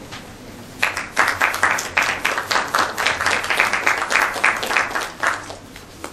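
Audience applauding: a run of hand claps that starts about a second in and dies away near the end.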